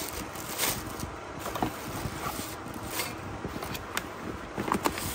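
Plastic wrapping crinkling and a cardboard box being handled as it is unpacked, with scattered sharp rustles and knocks, a quick cluster of them near the end.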